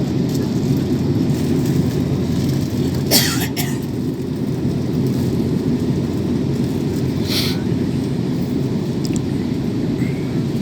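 Steady low rumble of an Airbus A320neo's cabin noise, engines and airflow, on the approach to landing. Two short hissing bursts stand out, about three and seven seconds in.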